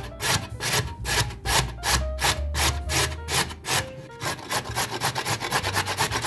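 Carrot being grated on a stainless steel box grater, repeated rasping back-and-forth strokes at about three to four a second, quickening near the end.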